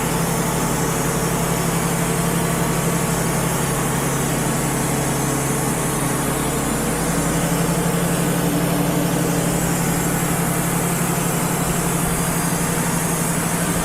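Wood-Mizer LT35 HD portable sawmill running steadily, its engine holding an even pitch.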